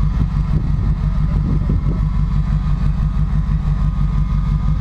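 Land Rover Discovery's engine idling steadily, started to power the winch while the truck is bogged in mud.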